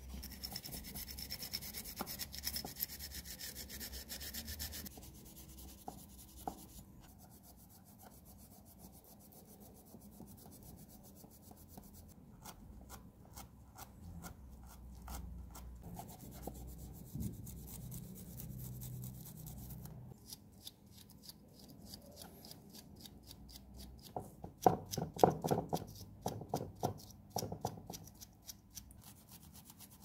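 Abrasive scouring pad rubbing over small metal lighter parts in quick back-and-forth strokes that come in spells. Louder scrapes and knocks come near the end.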